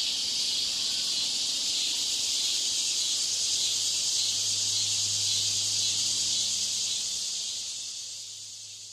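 A steady high-pitched hiss with a low hum underneath, fading out toward the end.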